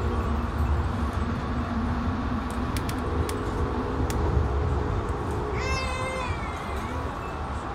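Steady low rumble of a moving Amtrak train, with a few light clicks and, about six seconds in, a short high meow-like cry that falls in pitch.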